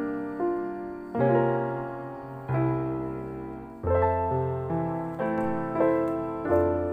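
Soft background piano music: notes and chords struck every second or so, each ringing and fading before the next.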